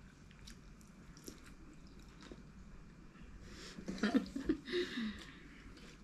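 Quiet chewing and mouth sounds of people eating beef stew and sadza with their hands, with faint scattered clicks, louder for a moment about four seconds in.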